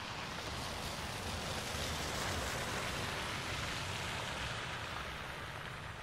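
City traffic driving on a wet, slushy street: tyres hissing and splashing through melting snow. The hiss swells about two seconds in as a vehicle passes, then eases toward the end.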